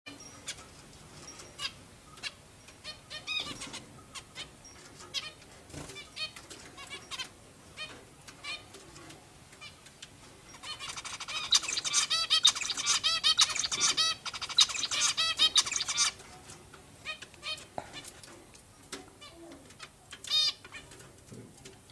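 Zebra finches giving short, scattered chirping calls, with a louder run of rapid, tightly repeated calls for about five seconds in the middle.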